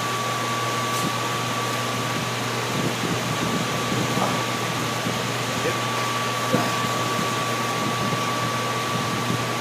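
Steady rushing air noise of a running fan, with a thin steady whine and a low hum underneath.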